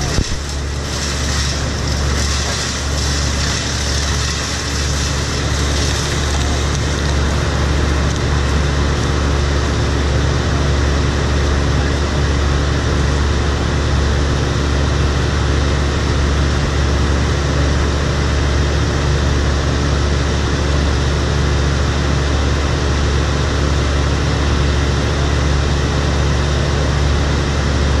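Engine of an Altec grapple saw boom truck running steadily at a constant speed while the boom works, with a low hum throughout and a brighter hiss over it for the first several seconds.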